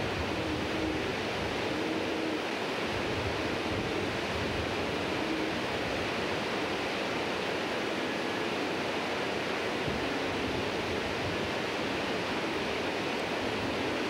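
Rushing river water running steadily over rocks at a falls.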